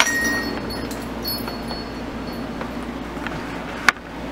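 A small bell on the shop's front door jingling as the door swings, its high ringing fading away over about two seconds. A single sharp click comes near the end.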